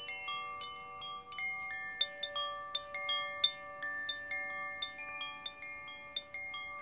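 Clear, bell-like ringing notes at a handful of fixed pitches. A new note starts three or four times a second at uneven intervals, and each rings on for a second or more, so the notes overlap into a continuous shimmer.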